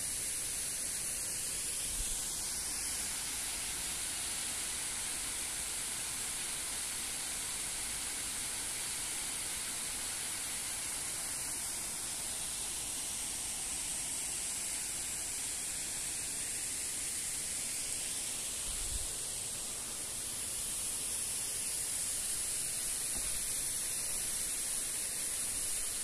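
Waterfall's falling water making a steady, unbroken hiss.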